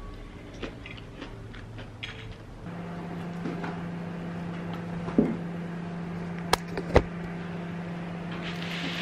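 A steady electric appliance hum starts about a third of the way in and keeps going, with a few sharp clicks and knocks over it about halfway through.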